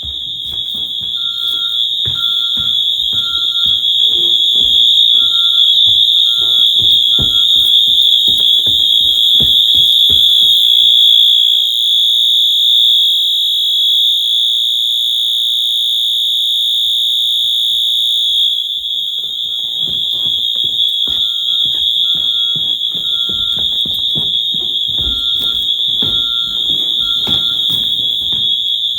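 Fire alarm sounding: a loud, steady high-pitched tone with a fainter beeping tone repeating in short groups beneath it. Knocks and rustles of handling come and go, dropping out for several seconds about midway.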